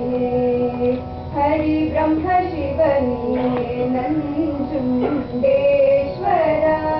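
Female singing voice performing a slow Indian devotional song, holding long notes that waver and slide between pitches.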